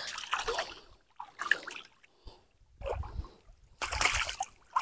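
Water splashing and sloshing as a mesh net bag full of freshly caught fish is dunked and swished in shallow lake water, in about four separate splashes.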